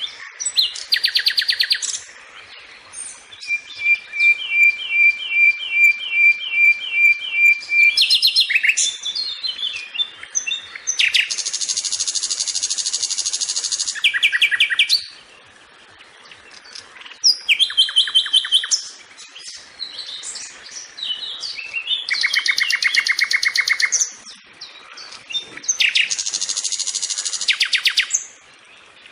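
A sikatan (flycatcher) singing a varied, chattering song in separate phrases. Rapid buzzy trills alternate with a run of about a dozen evenly spaced whistled notes, about three a second, with short pauses between phrases.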